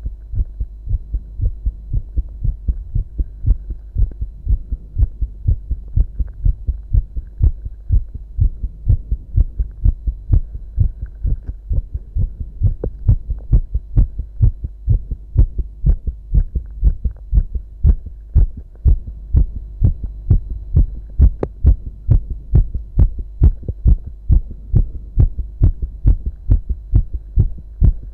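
A man's strong heartbeat, picked up against the chest: a steady, regular train of low lub-dub beats, with a faint steady hum underneath.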